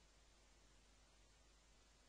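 Near silence: a faint steady hiss of recording noise.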